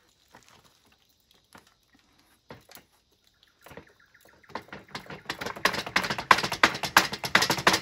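Car radiator core being bent and torn apart along a grinder cut, its thin metal fins and tubes crackling and crunching. A few scattered clicks at first, then from about halfway through a dense, rapid crackle that grows louder.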